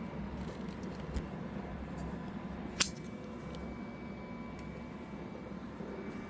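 Elegoo Centauri Carbon 3D printer running steadily through its self-check and vibration tuning, a low mechanical hum with faint whine tones, and one sharp click just before the middle.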